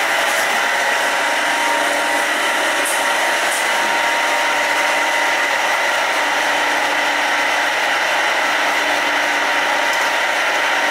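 Steady loud whirring of commercial kitchen ventilation, a fan-like noise with a few steady tones in it, with a few faint light clinks of a steel ladle and utensils against a wok and tray.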